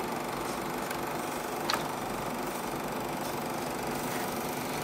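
Elmo ST1200HD Super 8 film projector running steadily, its motor and film transport making a constant mechanical whir. A short click comes a little under two seconds in.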